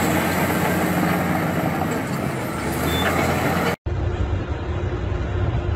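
Crawler bulldozer's diesel engine running steadily under load. After a cut a little under four seconds in, it is replaced by the low, steady engine noise of heavy mining machinery, an excavator and a dump truck.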